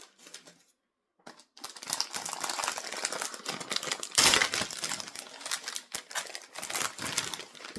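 Foil wrapper of a trading-card pack crinkling and crackling as it is handled and torn open, a dense run of rapid crackles that starts about a second and a half in and is loudest about four seconds in.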